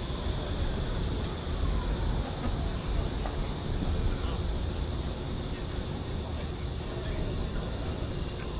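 Insects chirping: short clusters of rapid high-pitched pulses, repeating about once a second, over a steady low rumble.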